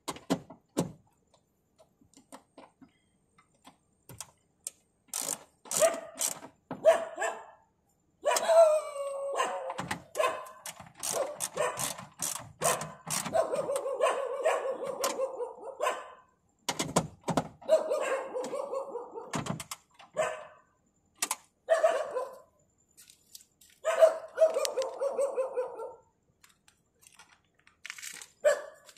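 A dog barking and whining, with short barks early on giving way to long wavering bouts, mixed with scattered sharp clicks and knocks.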